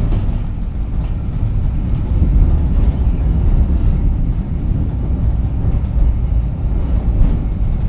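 Moderus Beta MF15 AC low-floor tram running along the track, a steady low rumble.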